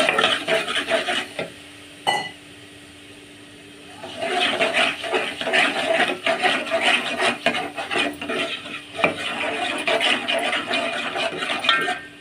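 Steel spoon stirring and scraping thick frying onion masala around a metal pot, the masala just starting to stick to the bottom. The stirring stops for about two seconds early on, then resumes with steady scraping strokes.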